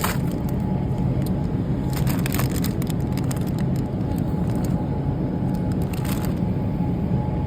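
A plastic bag crinkling a few times as it is handled, over a steady low background rumble.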